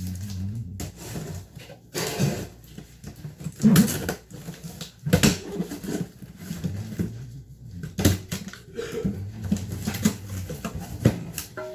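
Irregular knocks, clicks and thumps of toilet parts and tools being handled during assembly, with a few sharper knocks about 4, 5 and 11 seconds in.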